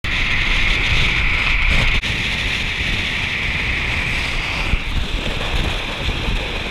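Wind rushing over a camera mounted on the outside of a moving car, with low road rumble beneath it. The sound changes abruptly about two seconds in.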